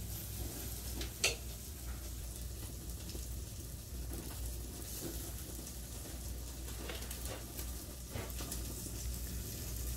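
Meat sizzling on a charcoal grill: a steady hiss over a low hum, with a few sharp pops from the fat, one about a second in and a couple more near the end.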